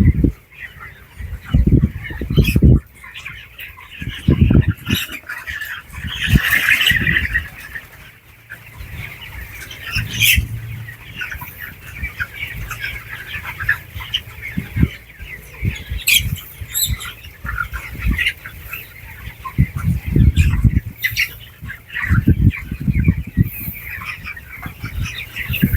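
A house full of broiler chickens, a steady din of many overlapping peeps and calls, broken now and then by loud low thumps.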